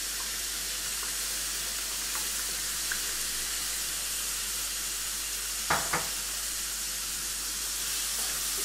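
Strips of pepper, onion and mushroom sizzling in a hot wok with a steady hiss. Two short knocks close together come about two-thirds of the way through.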